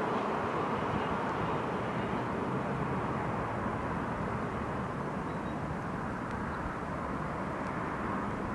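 NorrTåg X62 electric multiple unit running into the station, a steady rolling and running noise that slowly grows fainter and duller as the train moves away.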